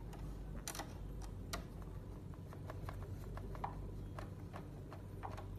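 Hand screwdriver turning a screw that fixes a car radio head unit into its plastic mounting frame, with hands handling the unit: scattered light clicks and ticks at an uneven pace.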